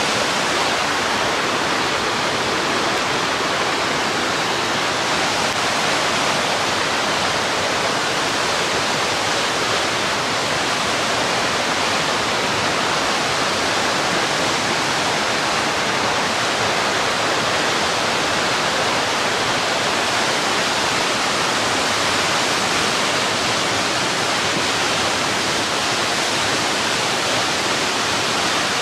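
Laughing Falls pouring and the whitewater creek below it rushing over rocks: a steady, even rush of water.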